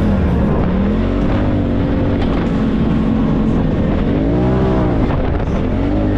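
Side-by-side UTV engine running under throttle while driving through sand, its revs rising and falling with the throttle, with two quick rev swells in the second half.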